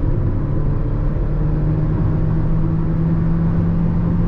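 Jeep Renegade's 1.3 turbo four-cylinder heard from inside the cabin under full-throttle acceleration, its engine note climbing slowly and steadily over a low road rumble.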